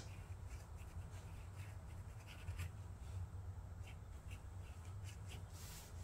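Faint scratching of a Sharpie marker tip drawing short ink strokes on watercolor paper, over a low steady hum.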